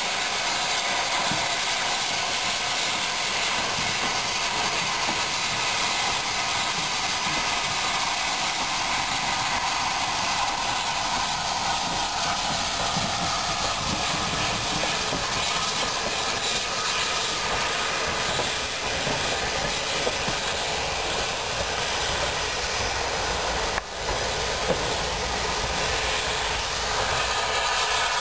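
Steady hiss of steam escaping from a steam locomotive, 34028, a rebuilt Southern Railway Bulleid West Country class Pacific, as it moves slowly along the line.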